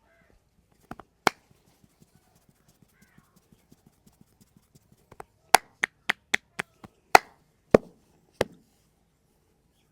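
Massage strikes: loud, sharp hand slaps or claps. There are a couple of strikes about a second in, then faint quick ticking, then a run of about nine loud strikes, roughly three a second, in the second half.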